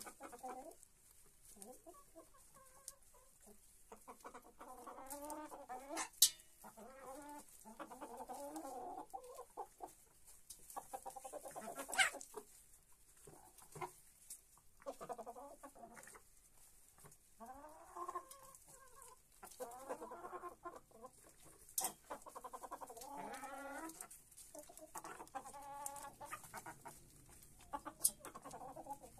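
Domestic hens clucking in repeated bouts while feeding, with a few sharp taps as beaks strike the clay feed bowl.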